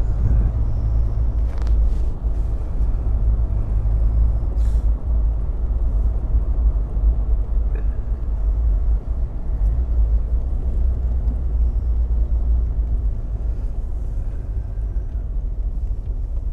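Triumph Herald driving along at a steady speed: a constant low rumble of engine and road noise.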